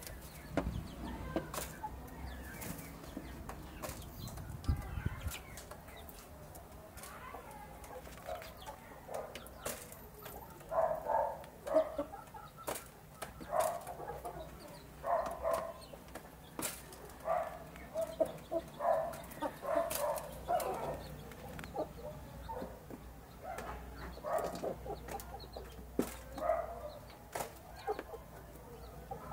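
Domestic chickens, a rooster and two hens, pecking rice from a dish: sharp taps of beaks throughout, with soft clucking that starts about a third of the way in and repeats roughly once a second.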